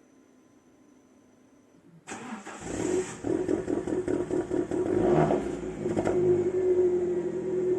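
Alfa Romeo MiTo 1.4 MultiAir turbocharged four-cylinder petrol engine starting about two seconds in, catching within half a second and settling into a steady idle, with a couple of brief revs partway through.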